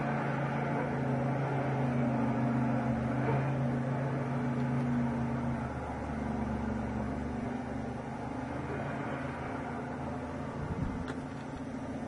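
Off-road vehicle's engine droning steadily under load as it climbs a steep rock face. It eases off and quietens about six seconds in, as the vehicle tops out.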